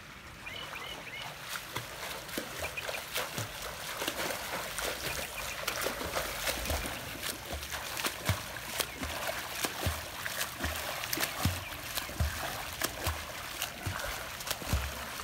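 A swimmer's freestyle arm strokes splashing and churning the water of a swimming pool, a steady run of splashes.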